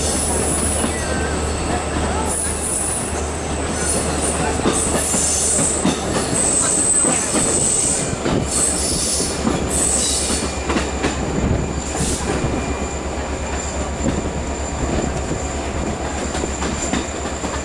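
Passenger train rolling along the track, with a steady rumble and clicking from the wheels on the rails. A high wheel squeal comes and goes as the coach takes the curves, most of all in the first half.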